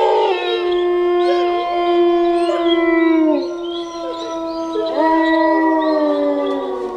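Eurasian wolves howling in chorus: several long, held howls at different pitches overlap, some sliding down at their ends, and a new howl begins about two-thirds of the way through.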